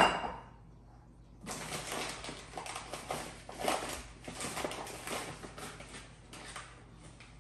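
A sharp knock as a measuring cup taps against a mixing bowl. Then, from about a second and a half in, the paper flour bag crinkles and rustles for several seconds as it is folded shut.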